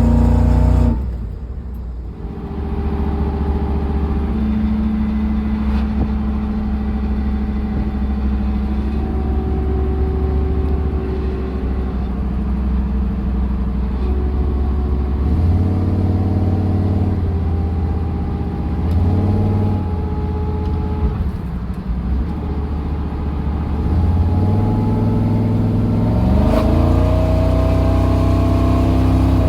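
383 stroker small-block Chevy V8 in a 1976 Chevrolet C10 running, its pitch stepping up several times as the engine is given throttle, with a longer rising climb near the end.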